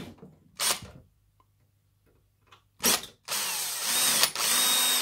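Cordless drill-driver spinning Pozidriv screws out of a sampler's steel chassis. There is a short burst of the motor about a second in, another near the three-second mark, then a steady run of nearly two seconds to the end.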